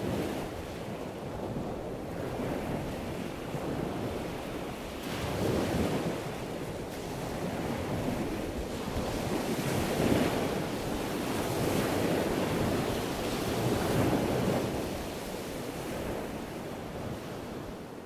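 Ocean surf: a steady rush of waves washing in, swelling and easing every few seconds.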